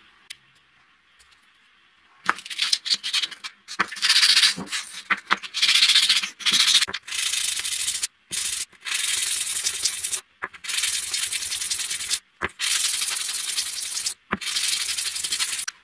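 A small brass piece rubbed by hand on a sheet of sandpaper laid flat, a scratchy hiss with each stroke. Quiet for about the first two seconds. The strokes then come short and choppy, settling into longer strokes of about two seconds each with brief pauses between.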